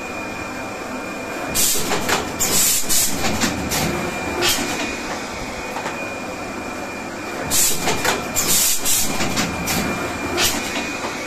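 Rigid box wrapping machine running: a steady mechanical hum with a thin high whine, broken by two spells of loud clatter and hiss as it cycles, the first starting about one and a half seconds in and the second about seven and a half seconds in.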